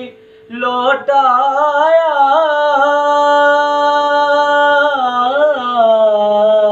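A man singing a naat, an Urdu devotional poem, unaccompanied: after a short breath pause he holds long, ornamented sung lines that waver up and down in pitch. A faint steady tone sounds underneath the voice.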